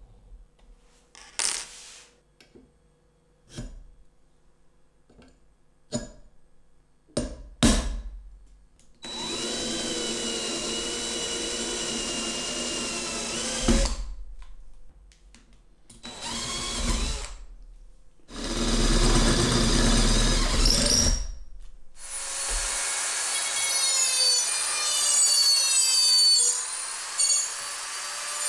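A few small clicks and knocks, then an electric drill runs steadily for about five seconds, boring a hole in a square aluminium tube. Two shorter drill bursts follow. About 22 seconds in, a rotary tool fitted with a small cutoff disc starts up with a high, wavering whine.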